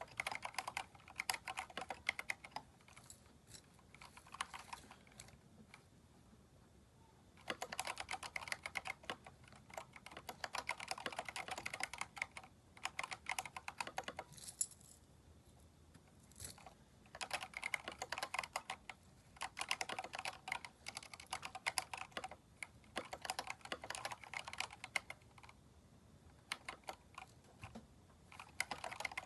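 Typing on a Keychron K4 mechanical keyboard fitted with aftermarket keycaps: runs of rapid keystrokes lasting a few seconds each, broken by short pauses, with a couple of single key clicks in the longer pause near the middle.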